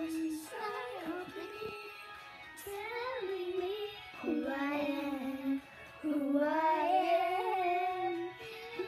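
Young children singing a melodic song over music, holding long notes.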